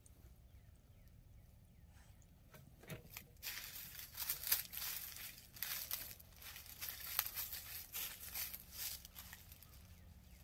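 Dry leaf litter crackling and rustling in quick, irregular bursts, starting a few seconds in and going on to near the end.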